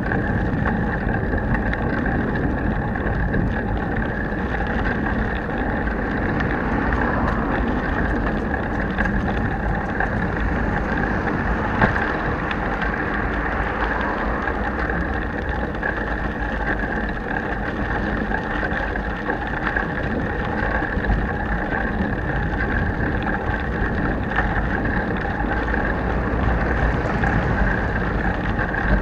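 Steady wind buffeting and rolling rumble picked up by a bare action camera's microphone mounted on a bicycle's handlebar while riding over paving, with one sharp knock about twelve seconds in.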